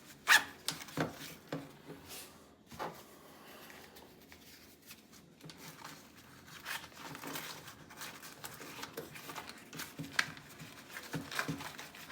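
Stiff 1000D Cordura nylon pouch being handled, its fabric rustling and scraping with sharp clicks and knocks as things are moved in its pockets. The loudest click comes about a third of a second in, with more scattered clicks through the rest.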